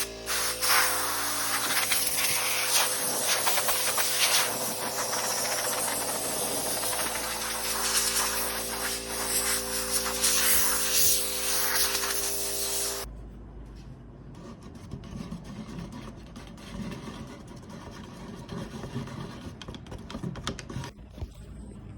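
Aerosol spray-paint can spraying a long, continuous hiss that cuts off suddenly about thirteen seconds in, followed by quieter handling noise.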